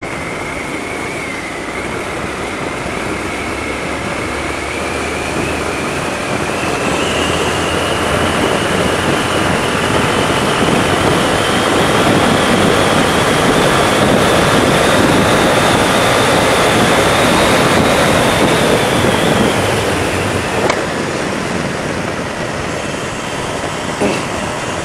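Bajaj Avenger 220 motorcycle underway on an open road, heard from a camera on the bike: steady wind rush and engine and road noise. A thin whine climbs in pitch and the noise grows louder as the bike speeds up through the middle, then both drop as it slows toward the end, with a couple of small knocks near the end.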